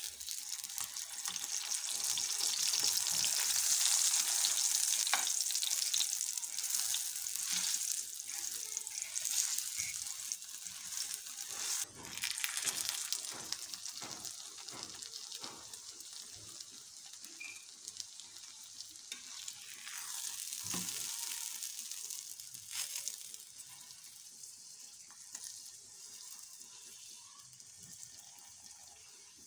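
Oil sizzling under a folded paratha frying on a tava, loudest a few seconds in and fading gradually as it cooks, with a few faint clicks.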